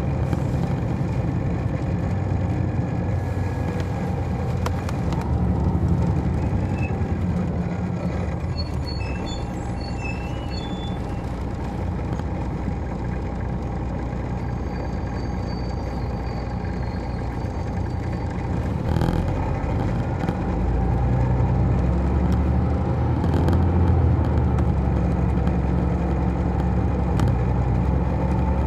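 2002 MCI D4000 coach's Detroit Diesel Series 60 engine running with a steady low drone. About two-thirds of the way through, after a brief click, the engine grows louder.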